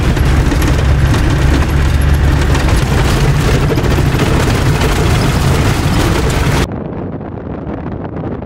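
Loud cabin rumble of a Land Rover Defender driving on a dirt track: engine and road noise. It cuts off suddenly near the end, leaving a much quieter hiss.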